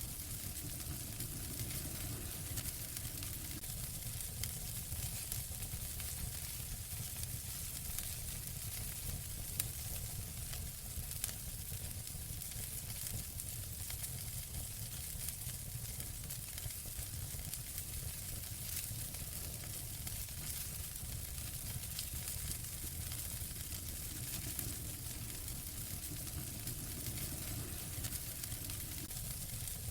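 Wood fire burning in a fireplace: a steady low rumble and hiss dotted with many small crackles, and two louder pops around ten and eleven seconds in.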